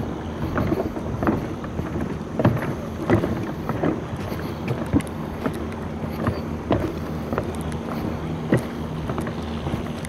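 A boat engine running steadily with a low hum, with irregular sharp knocks about once or twice a second.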